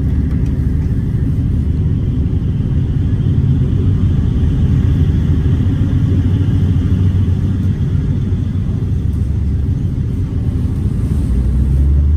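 Steady low rumble of a moving passenger train heard from inside the coach, with a deeper hum swelling near the end.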